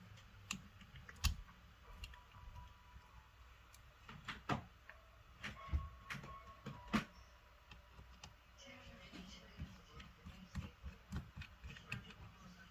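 Scattered light clicks and taps of small tools and parts being handled during a smartphone teardown, with a few sharper knocks and a quicker run of light clicks near the end.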